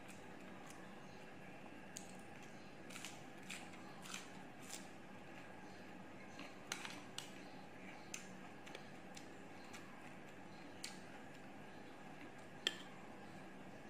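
Light, scattered clicks and taps of wooden chopsticks and a spoon against a glass bowl and ceramic plates while food is picked up, with one sharper clink near the end.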